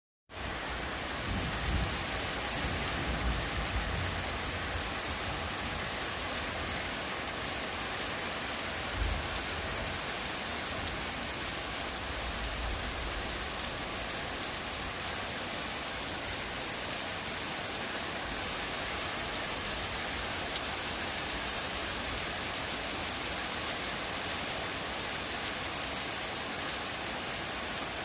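Heavy rain falling steadily, an even hiss, with a few low rumbles in the first dozen seconds.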